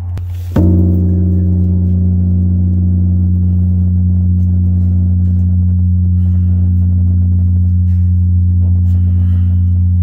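Large temple bell struck once with a hanging wooden log striker about half a second in, then ringing with a deep steady hum while its higher overtones die away over a few seconds.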